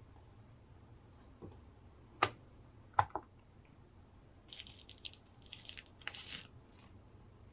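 Sharp clicks of small hard plastic parts being handled, two to three seconds in, then a few seconds of crinkling rustle of plastic wrapping, as a figure accessory is unwrapped by hand.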